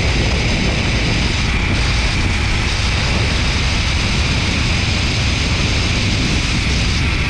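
Steady rush of wind buffeting the microphone, with the zipline trolley running along the cable at high speed.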